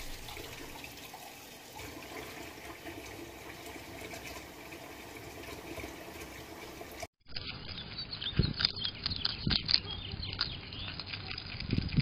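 Water trickling and splashing steadily from two holes in the side of a broken metal saucepan into a stainless steel sink. About seven seconds in it cuts off and gives way to close, crisp clicks and crunching of a groundhog chewing broccoli, with a few low thumps.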